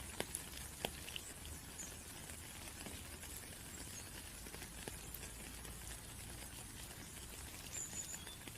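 Rain pattering steadily, with a few sharper single drop ticks in the first second. A brief high chirp comes near the end.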